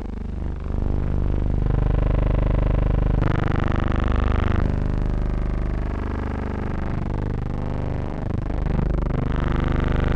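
Sustained synthesizer-like chords that shift to a new chord every few seconds.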